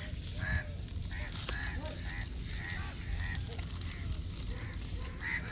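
Birds calling over and over in short calls, about two a second, over a steady low rumble.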